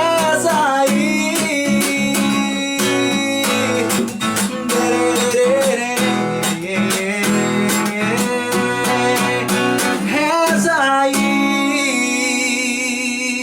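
Guitar-led instrumental ending of a sertanejo song: quick picked notes and chords, then a final chord held from about two seconds before the end, fading out.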